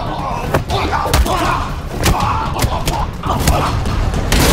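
Dubbed-in martial-arts fight sound effects: a quick series of punch and kick hits and body thuds, with the loudest impact near the end.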